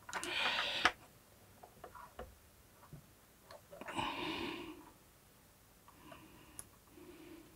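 Faint handling sounds from soldering fine wires into a soldering iron's handle: a few light clicks and ticks. There are two short hisses, each under a second long, one at the start and one about four seconds in.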